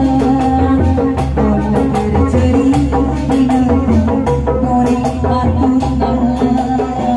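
Sundanese kuda renggong music: a melody over dense, steady drum and percussion strokes.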